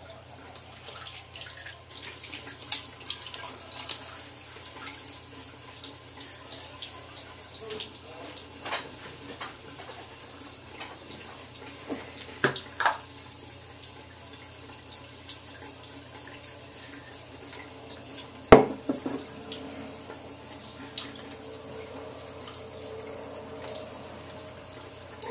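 Bathroom sink tap running steadily with splashing water, with scattered light clicks and knocks and one sharp knock about three-quarters of the way through.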